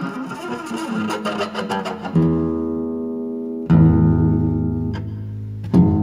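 Badly out-of-tune guitar: a scratchy stretch of rapid picking and string noise, then a chord struck about two seconds in and left ringing. A louder chord is struck a second and a half later, and another near the end.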